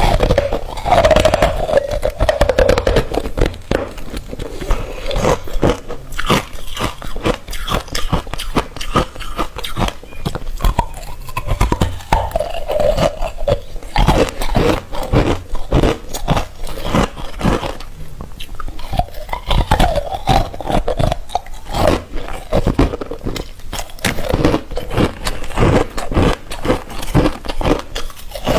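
Ice being bitten and crunched in many quick crisp bites, close up. Every few seconds comes a squeaky, wavering squeal as the teeth press into the ice.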